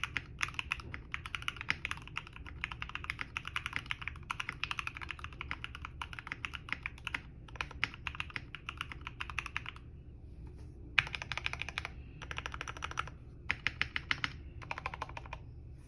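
Fast typing on a Tofu65 mechanical keyboard with an aluminium case and plate and Gateron Oil King linear switches lubed with Krytox 205g0, giving a thocky key sound. The keystrokes run dense for about ten seconds, stop briefly, then come in three shorter bursts.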